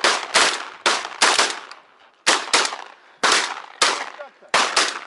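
A volley of shotgun shots from several hunters firing at geese overhead. There are about ten shots, many in quick pairs, with short gaps between the groups.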